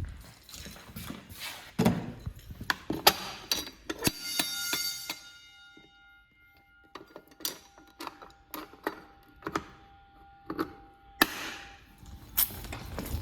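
A run of knocks and clicks. About four seconds in comes a bright metallic clang whose ringing tones die away over several seconds.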